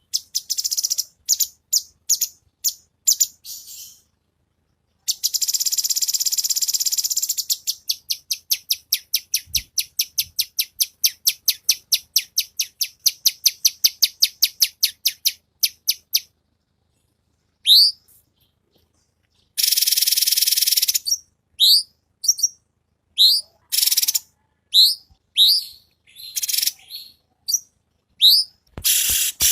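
Cucak cungkok singing in rapid, closely spaced phrases of short high notes. The song holds long buzzy trills and, later, a run of sharp up-slurred whistled notes about two a second.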